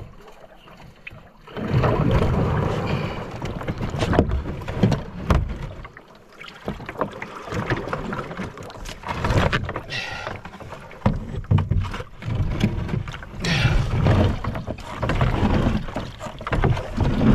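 Canoe hull scraping and grinding over the rocks of a shallow riverbed as it is pushed along with the paddle used as a pole: the canoe is bottoming out in water too shallow to float it. The scraping comes in uneven bursts, with sharp knocks among them.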